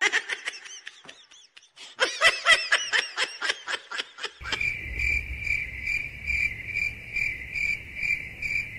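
Quick, high-pitched giggling in short bursts, then from about four and a half seconds in a cricket chirping in even, rapid pulses that starts suddenly.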